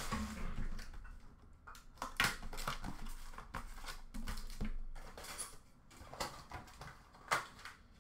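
Hockey card boxes and packs being handled and set down: scattered light taps, knocks and rustles of cardboard and packaging, about half a dozen sharper clicks among them.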